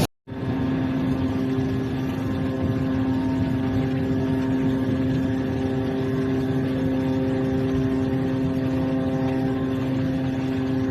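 Steady engine-like drone at a constant pitch: a strong low hum with many overtones, unchanging throughout.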